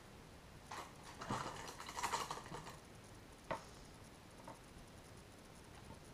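Faint scratching and rustling of painting materials being handled at a desk, a brush working on paper and palette, followed by one sharp click a couple of seconds later.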